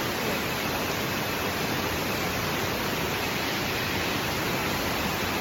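Steady, even rush of water, unbroken and unchanging in level.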